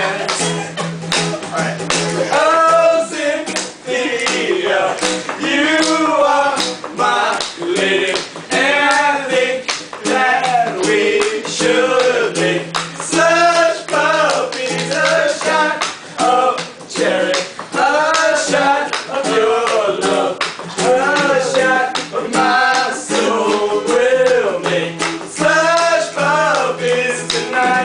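Music: a voice sings a melody over instrumental backing with a steady beat.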